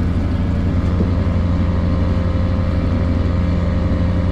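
Fishing boat's engine running steadily, a constant low drone with a faint steady hum above it.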